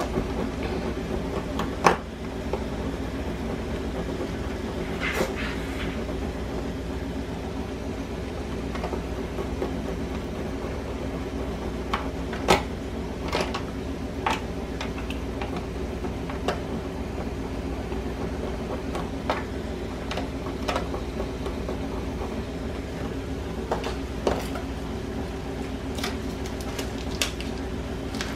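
A block of cheese grated by hand on a stainless-steel box grater: scattered scrapes and clicks over a steady low hum.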